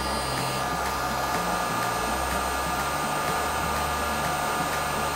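Hot air rework gun blowing steadily over a BGA chip to reflow its solder: an even hiss with a thin steady whine.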